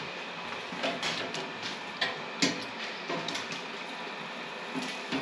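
Scattered sharp clicks and clinks of metal kitchenware as breaded salmon is handled and set into a deep fryer's wire basket, over a steady background hum.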